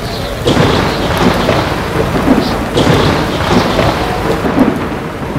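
Thunderstorm: steady rain with rumbling thunder, growing louder about half a second in.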